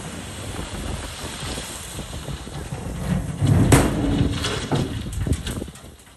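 A load of 2A crushed stone sliding out of the raised bed of a Kenworth tri-axle dump truck: a steady rumbling rush, then a louder stretch of clattering stone about three and a half seconds in that dies away near the end.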